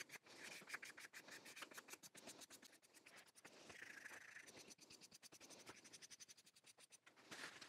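Fine 1200-grit wet-and-dry abrasive paper rubbing back and forth in quick, light strokes over a small hand plane's finished handle. The result is a faint, fast scratching that knocks the top off the finish.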